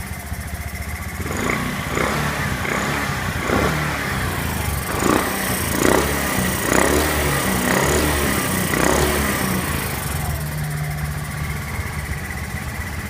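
Honda Zoomer X scooter's small single-cylinder fuel-injected engine running, blipped up several times in the first two-thirds and then settling to a steady idle. It runs now that a new fuel pump motor gives about 3 bar of fuel pressure.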